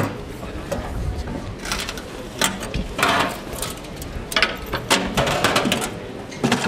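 Stainless-steel body of a Tentipi Eldfell Pro tent stove being handled and set down on paving stones: irregular metallic clanks, knocks and scrapes.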